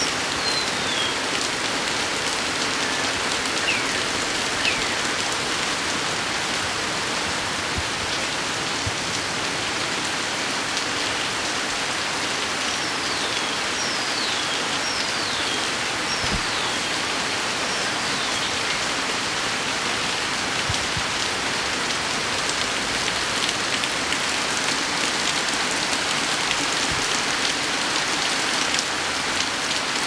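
Heavy tropical rain falling steadily on garden foliage and surfaces. A bird gives a few falling whistled notes over it, with a run of five about halfway through.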